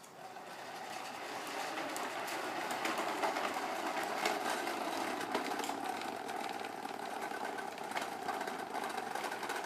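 Bubble lawn mower running: a steady mechanical whirr with fast, dense clicking that builds up over the first second or so.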